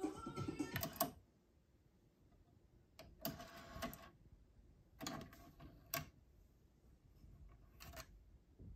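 Music playing from a Sony DTC-59ES DAT deck stops about a second in when Stop is pressed. Then the deck's tape mechanism makes a series of short whirs and clicks as it unloads the tape and the cassette lid opens, with a last click near the end as the DAT cassette is lifted out.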